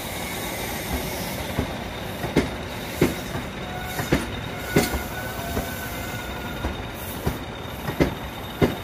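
Railway coaches rolling past, their wheels knocking over rail joints and pointwork about once a second over a steady rumble, with faint wheel squeal in the middle.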